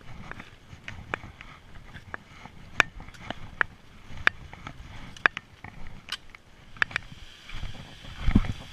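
Footsteps and trekking-pole tips clicking and scraping on a rocky trail, in sharp irregular clicks. About seven seconds in, the steady rush of a waterfall comes in under them, with a dull low thump near the end.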